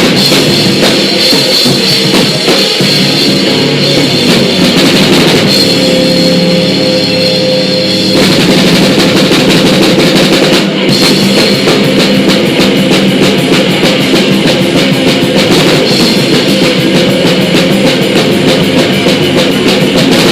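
Live rock band playing loudly, a drum kit driving the music with rapid hits, the arrangement shifting about eight seconds in.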